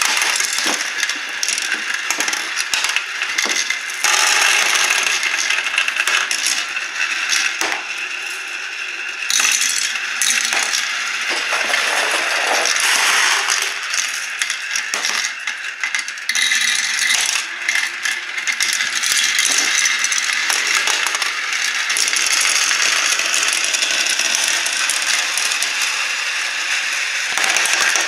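Many small plastic balls rattling down a Kumon Kumi-Kumi Slope plastic marble run: a continuous dense clatter of balls rolling round plastic funnel bowls, knocking together and dropping through tubes and tracks.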